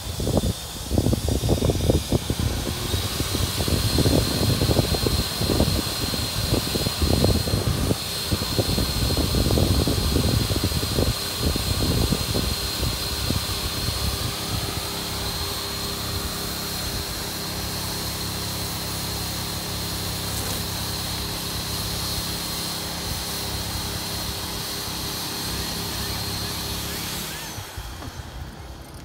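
Electric air blower inflating an inflatable deck, running steadily with a hum and a high whine. Heavy irregular low rumbling sits over it for the first dozen seconds. The blower cuts off near the end.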